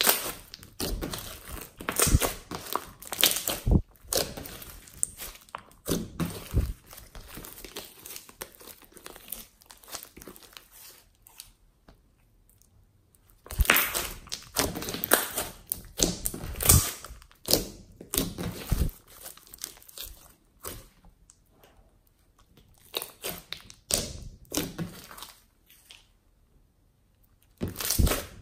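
Hands squeezing, stretching and kneading soft slime, squishing it in irregular bursts of sticky, crinkly noise with a few short quiet pauses between handfuls.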